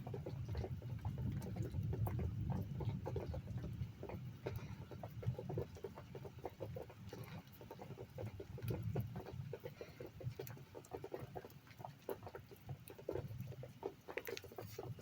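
Rain pattering steadily in a thunderstorm, with a low rumble of thunder that is strongest in the first few seconds and dies away.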